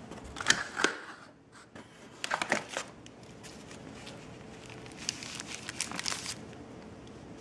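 Cardboard packaging and paper leaflets being handled and pulled out of a box: rustling and crinkling in three short flurries, about half a second in, around two and a half seconds, and again around five to six seconds.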